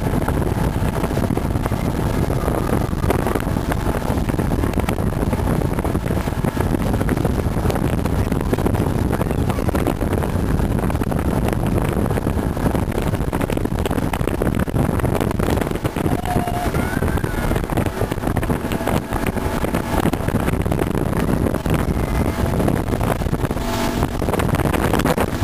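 A small open boat's motor running steadily under way, mixed with wind buffeting the microphone.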